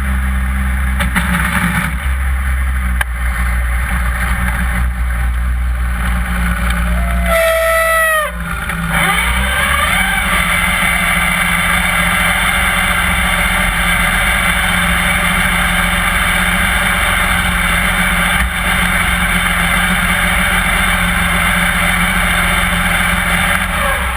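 Front-engined dragster's turbocharged Nissan RB30 straight-six running steadily at low revs as the car rolls slowly after its run, with a brief falling whine about eight seconds in.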